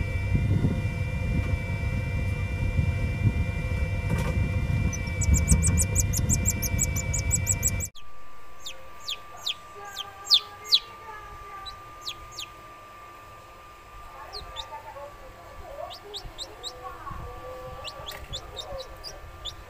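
Newly hatched kampung (village) chicks peeping: sharp, high cheeps that fall in pitch, coming in quick runs, the loudest pair about ten seconds in. For roughly the first eight seconds a steady low rumble with a hum covers everything, then cuts off abruptly, leaving the peeping over a faint steady hum.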